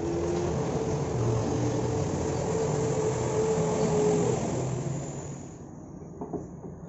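A motor vehicle engine running with a steady hum, fading away about five seconds in.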